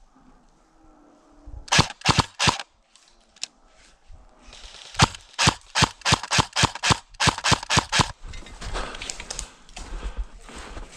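Airsoft guns firing: three quick shots about two seconds in, then a run of about a dozen shots between five and eight seconds. After the shots comes a quieter scuffing noise.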